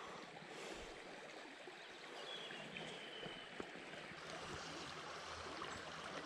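Small shallow burn flowing over its stony bed, a faint steady rush of running water.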